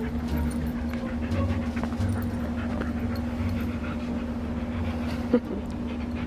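German shepherd panting close to the microphone, over a steady low hum. A single sharp knock sounds about five seconds in.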